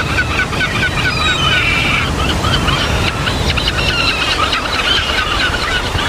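Many birds calling together in quick, short chirping notes over a steady low rumble.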